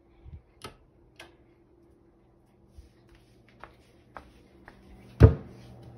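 Two sharp clicks of a wall light switch being flipped, then a few faint ticks and one loud thump near the end.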